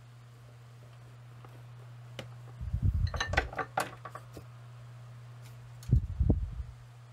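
Small metal parts and tools being handled at a wooden workbench: a rattle of clinks and clicks about two and a half seconds in, then a couple of louder knocks near the end, over a steady low hum.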